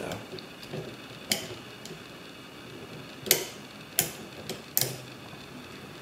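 Sharp metallic clicks from a picking tool working the lever inside a Yale post office lever lock: four clicks at uneven intervals.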